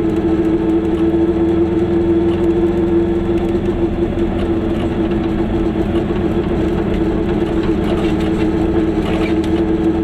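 Goggomobil's small two-stroke twin-cylinder engine running steadily at a constant speed, a loud, even drone with no change in pitch.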